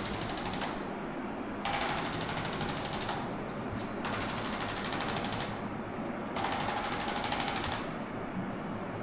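A small mechanical device rattling rapidly in repeated bursts. Each burst lasts about a second and a half, with short pauses between: one trailing off at the start, then three more.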